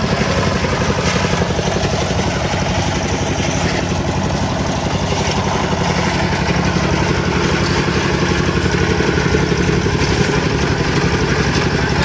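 A small engine running steadily at an even speed.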